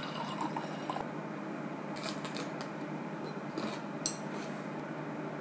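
Chopsticks clicking together and tapping on a plate in a few small, scattered clicks, the sharpest about four seconds in, over a steady low hum.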